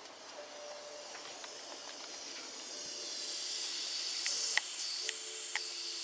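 Hissing from a BMW N55 engine's crankcase breather at the valve cover after the engine is switched off, vacuum trapped in the crankcase bleeding off. It grows louder about halfway through, with a few light clicks near the end. The hiss is the sign of a failed breather valve diaphragm that pulls too much crankcase vacuum; the mechanic says the engine needs a new valve cover.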